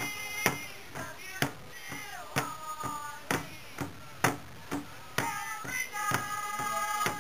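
Group of women singing a powwow song in high voices over a large rawhide powwow drum, which is struck together by several drumsticks in a steady beat of about one stroke a second. The sung notes are held and then slide downward.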